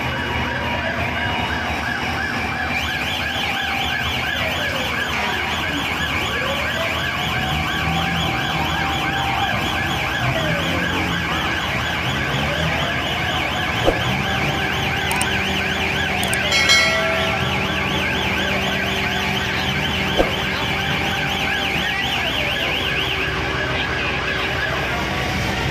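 Several emergency vehicle sirens sounding at once: one slow rising-and-falling wail, repeating every few seconds, under fast yelping warbles. About two-thirds of the way in there is a brief loud blast.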